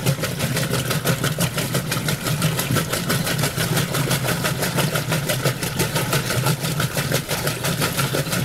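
Roper top-load washing machine agitating in its wash cycle: a steady motor hum with rapid, repeated knocking throughout. This is the clunking sound being traced to the agitator.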